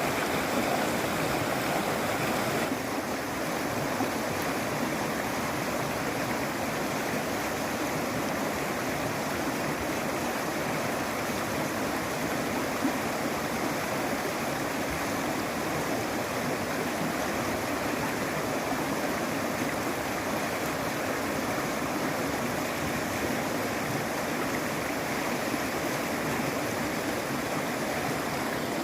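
A steady rushing, water-like noise with no break; its higher hiss eases slightly about three seconds in.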